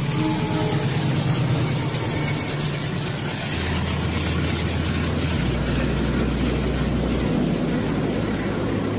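Diesel-hauled train passing close by, a steady rushing rumble. Underneath runs a low drone that shifts to a new pitch twice, about three and a half and five and a half seconds in.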